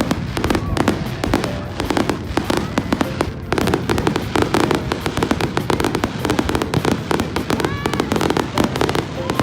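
Fireworks crackling and popping, a dense unbroken run of rapid sharp bangs.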